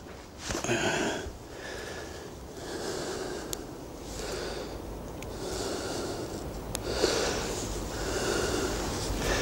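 A man breathing audibly through his nose in slow, repeated breaths while he works with his hands, with a few light clicks from handling small fishing tackle.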